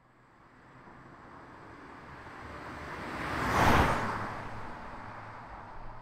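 A car, presented as a 2022 Audi A5, driving past: the sound swells steadily, is loudest a little past halfway through, then fades away.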